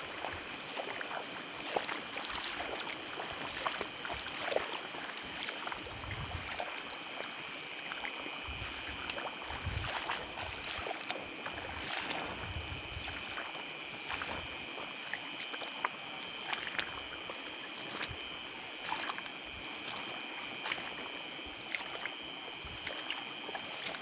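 Steady high trilling of night insects, with water sloshing and scattered splashing clicks close by, as of someone wading through shallow water.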